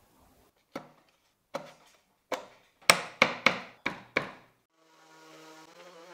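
Eight sharp wooden knocks, coming closer together toward the middle, as glued pine divider strips are tapped down into a wooden compartment box by hand. About five seconds in, a random orbital sander starts up with a faint, steady hum.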